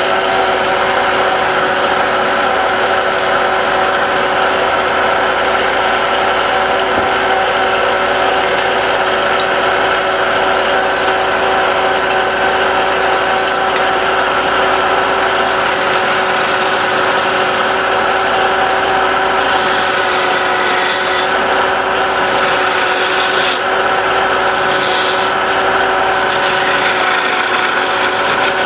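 Wood lathe running with a steady motor hum while a tool rubs and scrapes against the spinning wooden blank of a musal (pestle), with a few brief sharper scratchy passages past the middle.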